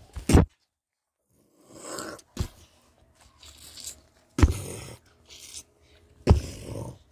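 Plush toy smacked repeatedly down onto a bedspread by hand: four sharp thumps about two seconds apart, with fabric rustling between them.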